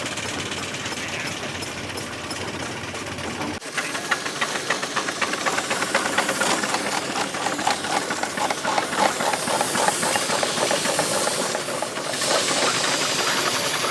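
Miniature steam engine running: steam hissing, and from a few seconds in a rapid, even beat of exhaust chuffs over the hiss.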